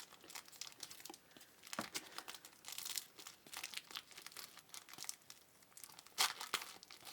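Trading card pack wrappers being crinkled and torn open, an irregular run of crackling with a louder rip a little after six seconds.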